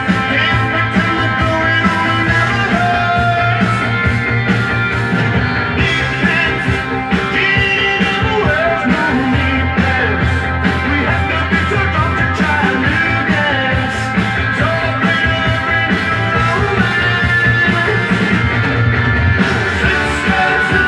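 Rock music with a steady beat playing from a vinyl LP on a Dual 1257 belt-drive turntable.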